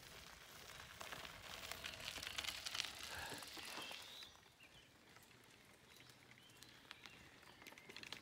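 Bicycle tyres crunching and crackling over a gravel track, a scatter of small clicks. Louder over the first four seconds, then quieter.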